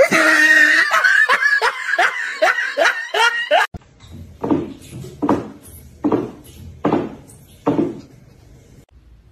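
A person laughing in quick, falling bursts, cut off suddenly, followed by a run of short sounds about once every second.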